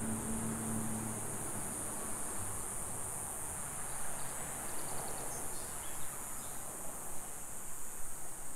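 Steady high-pitched insect drone with no break. A low hum fades out about a second in, and a few faint high chirps come about halfway through.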